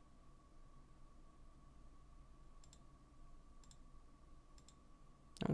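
Faint computer mouse clicks, three pairs about a second apart in the second half, over quiet room tone with a faint steady whine.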